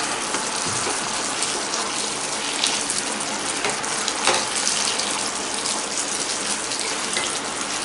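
Thick cornflour gravy with fried bread cubes and onions sizzling steadily in a hot kadhai, stirred now and then with a wooden spatula that makes a few faint clicks against the pan.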